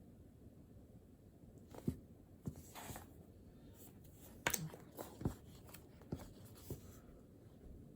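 Small taps, clicks and paper rustles from study materials being handled on a desk, such as paper, pages and a pen. They run from about two seconds in to about seven seconds in, against quiet room tone.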